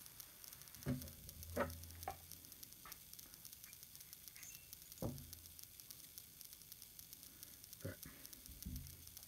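A few faint, scattered clicks and taps of small metal parts being handled: the brass air valve of a Hatsan PCP air rifle, with its valve pin and spring, worked together by hand.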